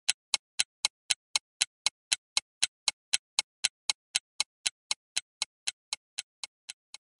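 Countdown-timer ticking sound effect: an even, clock-like tick about four times a second that grows fainter near the end and stops.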